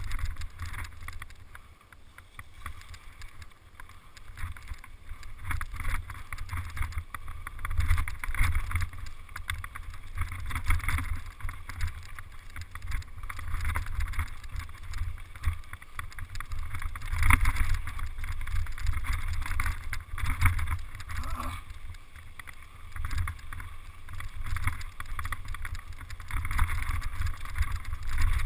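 Wind buffeting the microphone of a camera on a mountain bike riding fast down a rough dirt trail, a gusty low rumble, mixed with the bike and tyres rattling and knocking over rocks and ruts.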